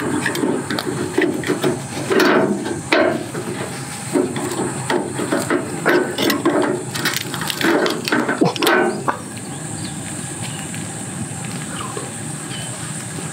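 Knife scraping and prying at the shell of a grilled oyster to cut the adductor muscle and lift off the top shell: irregular scrapes and clicks of metal on shell that stop about nine seconds in, leaving a steady hiss.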